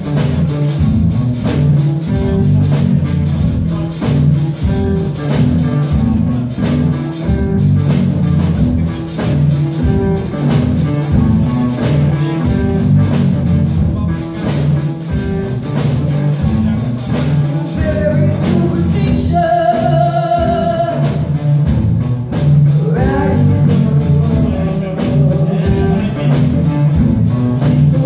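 Live rock band playing: drum kit, bass and electric guitars, with a woman singing lead into a microphone. Past the middle she holds one long note.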